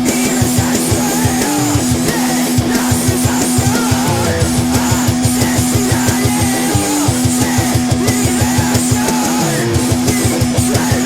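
Heavy rock demo recording: guitars hold a low note that steps up briefly every few seconds over fast, even low drumming.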